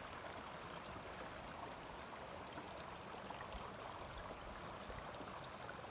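Faint, steady rush of flowing water in a shallow, rocky stream.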